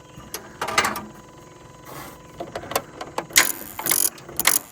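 Kubota L3301 tractor's starter relays under the cowl clicking and chattering, with scattered clicks at first and repeated rattling bursts from about three seconds in. This is a no-start fault that the owner puts down to a short somewhere in the starter circuit.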